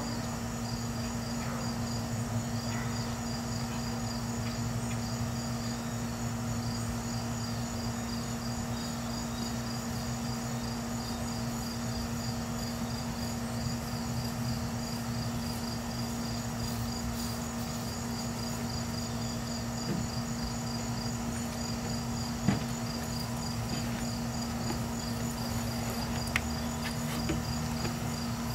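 Crickets chirping in the background: a steady, evenly repeating pulse of high notes. A steady low hum lies underneath, and a couple of short sharp clicks come near the end.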